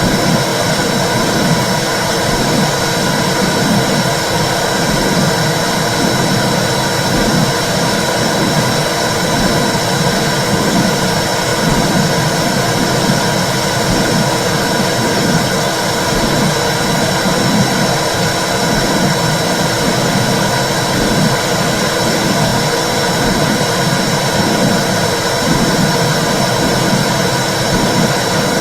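Womb sound recorded or simulated as heard from inside the uterus: a steady loud whooshing rush with a low pulsing whoosh about once a second, like blood flow and a heartbeat heard through fluid.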